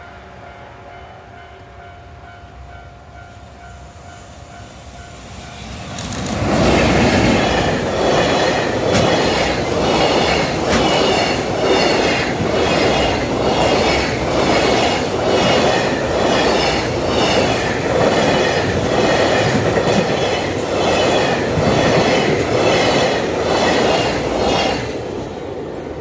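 Level-crossing warning bell ringing in a steady repeating pattern. About six seconds in, a JR Freight EF210 electric locomotive and its freight wagons pass close by. A loud, rhythmic clatter of wheels over the rail joints runs for some twenty seconds and fades near the end.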